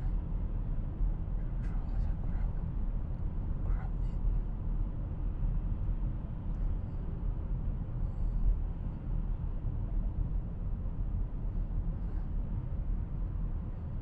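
Steady low rumble of road and engine noise heard inside a car's cabin while cruising on a highway.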